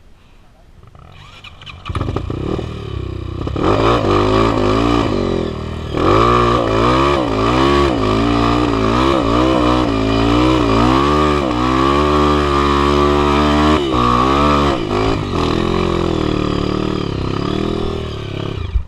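Honda CRF 240 (a bored-out, hot-cammed CRF230) single-cylinder four-stroke dirt bike engine revving under load on a steep muddy climb. It comes in about two seconds in, and the revs rise and fall again and again with the throttle, easing off near the end.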